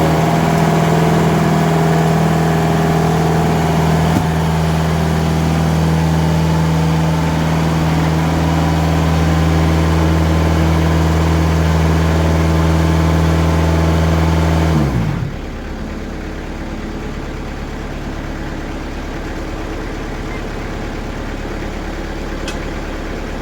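Diesel engine of a TimberKing band sawmill running at high speed while the blade makes a reference cut along a black walnut log. About fifteen seconds in, the engine's pitch glides down and it settles to a quieter idle as the cut ends.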